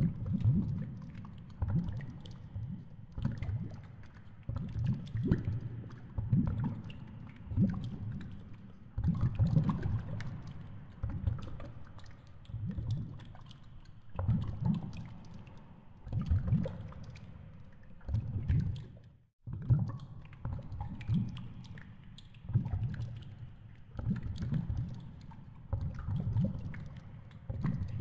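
Underwater churning as a polar bear swims, heard muffled through the pool's viewing window: low surges of moving water come every second or two, with small crackles of bubbles. The sound cuts out briefly about two-thirds of the way through.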